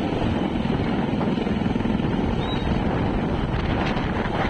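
Helicopter rotor beating steadily, mixed with wind buffeting the microphone and breaking surf.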